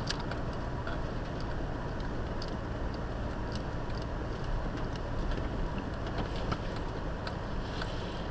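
Car driving slowly, a steady low rumble of engine and road noise heard from inside the cabin, with scattered light ticks and rattles.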